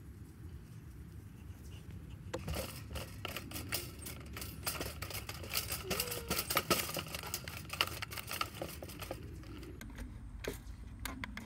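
A low, steady background rumble, then from about two seconds in a run of small clicks, taps and rustles as hands handle a black two-slot toaster with English muffin halves in its slots, with a few more clicks near the end.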